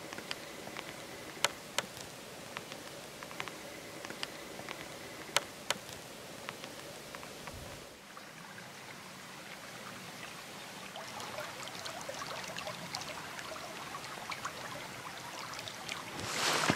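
Faint, quiet outdoor stillness with a few sharp clicks. About eight seconds in, a small forest stream trickling and babbling takes over, slowly growing louder.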